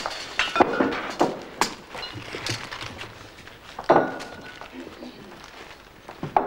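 Irregular knocks and clinks of glass bottles being handled and handed out from a basket. The loudest knock comes about four seconds in and rings briefly.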